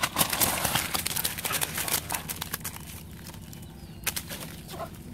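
Live giant freshwater prawns and twigs tipped into a woven bamboo basket: a rustling clatter for about two seconds, then scattered clicks as the prawns flick their tails against the basket.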